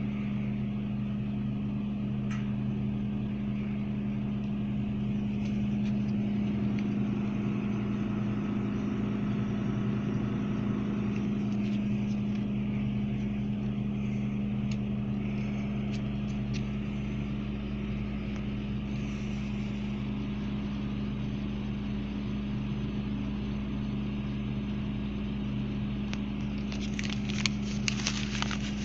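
Steady hum of a Royal Vendors RVCC 550-6 refrigerated soda vending machine running, with two constant low tones. Near the end come a few bursts of crisp crackling.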